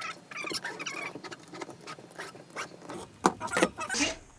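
Utility knife scoring a peel-and-stick vinyl floor plank along a metal straightedge: a run of quick scratchy scrapes, followed by a few louder sharp knocks near the end.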